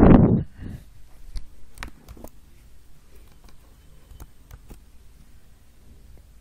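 A short muffled burst of sound at the very start, then a few faint, sharp clicks scattered over the next few seconds, like computer mouse clicks, over a low steady hum.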